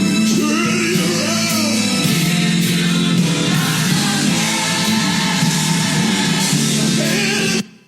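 Gospel song with singing over a full band. The music drops out suddenly for a moment near the end.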